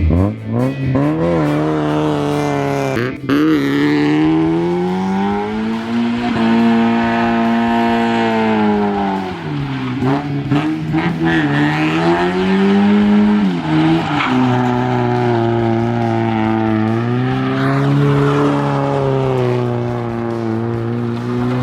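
Mazda Miata's 1.6-litre four-cylinder engine revving hard under load, its pitch climbing and dropping several times as the car is driven hard.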